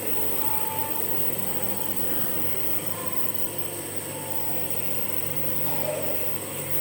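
Compressor nebuliser's motor running with a steady hum.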